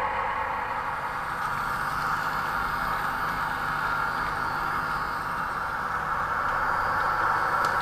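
Steady diesel engine sound from a sound-fitted 00 gauge model locomotive, played through its small onboard speaker.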